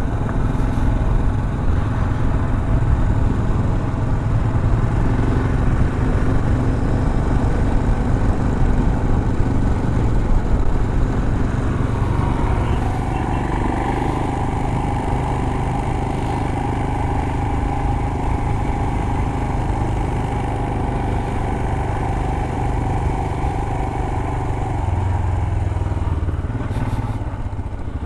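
Royal Enfield Himalayan's 411 cc single-cylinder engine running steadily as the motorcycle is ridden off-road.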